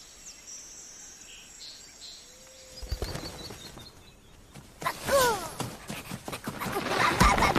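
Forest ambience from an animated soundtrack: faint insect and bird chirping, growing louder from about three seconds in, with a short call falling in pitch about five seconds in.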